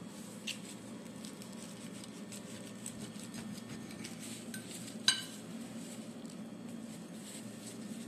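Kitchen utensils and dishes being handled: scattered light clicks and taps over a steady low hum, with one sharp ringing clink about five seconds in.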